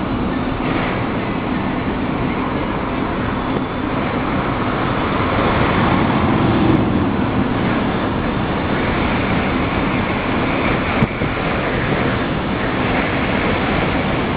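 Steady rush of wind and road noise from a moving car with its sunroof open.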